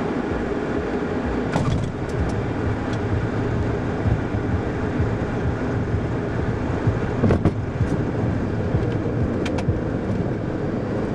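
Steady cockpit noise of a Cessna Citation II business jet: airflow and its twin Pratt & Whitney JT15D turbofans running, with a few short knocks and clicks over it.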